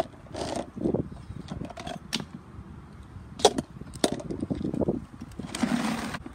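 Light plastic knocks and clicks from a PVC pipe bumping and scraping against small plastic toy trash bins, with the sharpest knock about three and a half seconds in and another just after four seconds. A brief rustling handling noise comes near the end.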